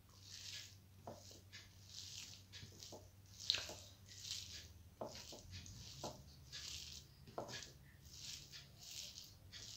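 Fingers mashing and mixing cooked rice with fenugreek greens (methi shak) on a steel plate: repeated soft squishes, with a few light clicks.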